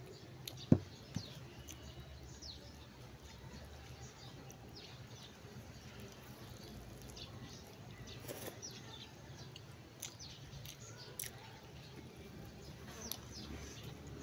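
A man chewing and smacking his lips while eating with his hand, with soft mouth clicks throughout. A sharp click about a second in is the loudest sound, and faint quick high chirps come and go over a low hum.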